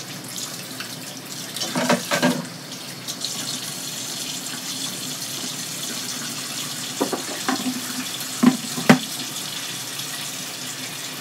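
Kitchen tap running steadily into a sink from about two seconds in, with a few short knocks and clatters of utensils or dishes, two of them sharper near the end.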